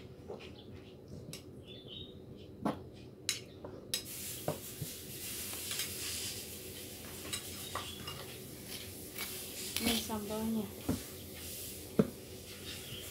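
Metal spoon clinking and scraping against a ceramic plate as food is spooned out, in a series of separate clicks, with one sharp knock near the end.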